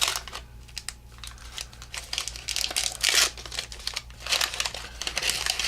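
Waxed-paper wrapper of a 1984 Topps baseball card pack crinkling and tearing as it is opened and handled, in irregular crackling bursts, loudest about three seconds in.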